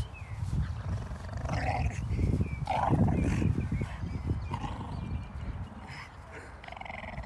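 A Boston Terrier and a Boxer puppy growling in play as they tug over a rope toy, with a few short higher-pitched growls mixed in; loudest about three seconds in.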